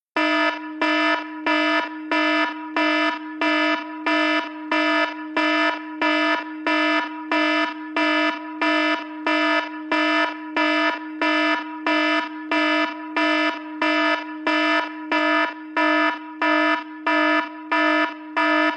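iPhone ringtone: a buzzy, alarm-like electronic tone on one steady low pitch, pulsing evenly about three times every two seconds.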